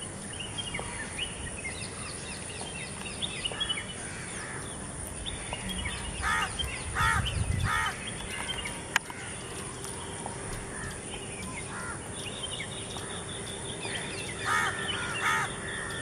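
Birds calling: a running twitter of short high chirps, with a loud harsh cawing call repeated three times about six seconds in and twice more near the end. A single sharp click comes about nine seconds in.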